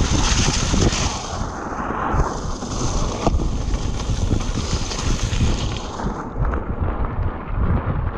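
Wind rushing over the camera microphone with the rumble and clatter of a mountain bike rolling fast over a wet, rocky dirt trail. A high hiss in the wind noise eases off in the second half.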